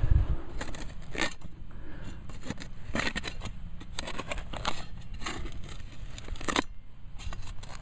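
Shovel blade cutting and scraping into soil while digging out a metal detector signal: a string of short, sharp scrapes, bunched around three and five seconds in.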